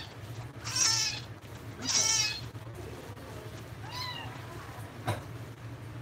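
Small kitten meowing while held by the scruff. There are two loud, high-pitched meows in the first couple of seconds and a fainter one about four seconds in, then a single sharp click.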